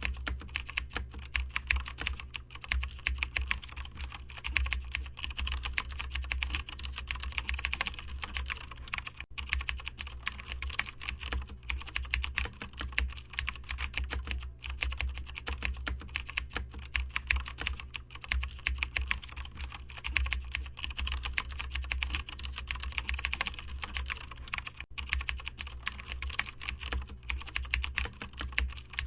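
Steady, rapid typing on a computer keyboard, many keystrokes a second, with a few brief pauses. A low steady hum runs underneath.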